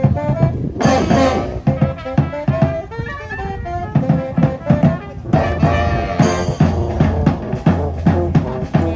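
Street brass band playing. Horns carry the melody over a drum kit, with loud crashes about a second in and again about six seconds in.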